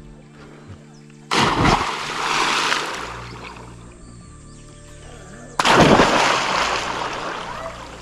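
Two loud splashes of people jumping off a wooden dock into a lake, one just over a second in and the other about four seconds later, each dying away as the water settles. Background music with steady tones plays underneath.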